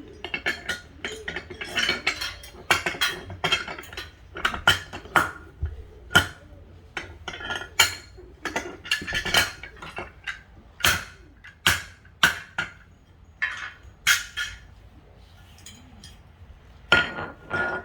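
Metal parts of a gumball machine stand clinking and knocking together in irregular clusters of sharp clicks while its legs are being fitted.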